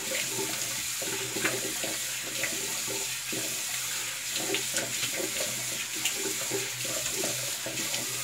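Cold water running steadily from a bathroom tap into the sink, with irregular splashing as the face is rinsed off after a shave.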